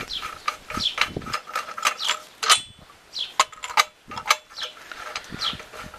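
Ratchet mechanism of a Bollard ratcheting friction brake being worked by hand, its pawl clicking over the ratchet in a run of sharp, irregular metal clicks.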